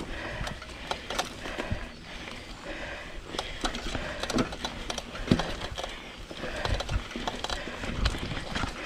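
Trek Marlin 7 hardtail mountain bike ridden along a dirt trail: tyres rolling over dirt and leaf litter, with frequent irregular clicks, knocks and rattles of the bike over bumps.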